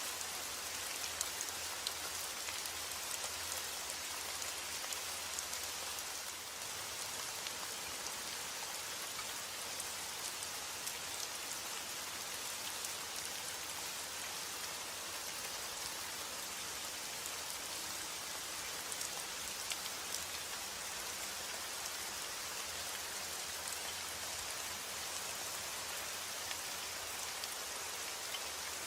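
Steady rainfall, an even hiss with many small drop ticks scattered through it.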